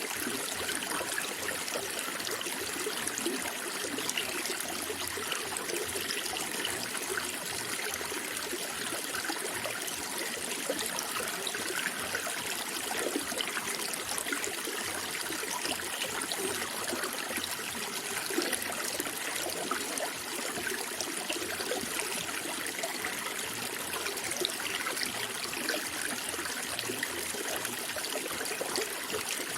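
Water running steadily in a small stream, trickling and burbling.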